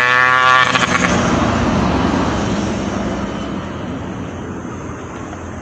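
A road vehicle passing close by: its engine note is loud for about the first second, then gives way to road noise that fades steadily as it moves away.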